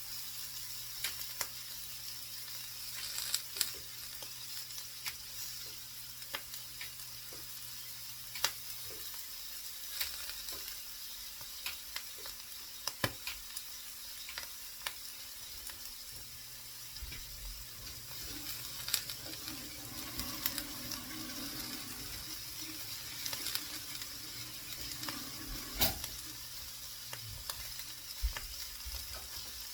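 Food frying in a pan: a steady sizzle with sharp pops and crackles scattered throughout.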